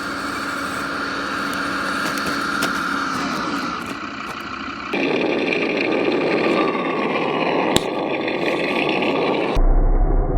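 Radio-controlled model vehicles running, in cut-together clips: first a steady motor whine, then about halfway through a noisier, rougher stretch of motor and driving noise with a single sharp knock near the end.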